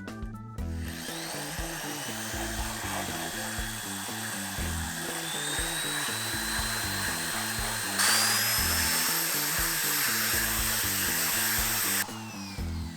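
Corded electric drill running a carbide burr bit against Corian solid surface, grinding with a high whine that rises as it spins up about a second in, gets louder about eight seconds in, and stops abruptly near the end. Background music plays throughout.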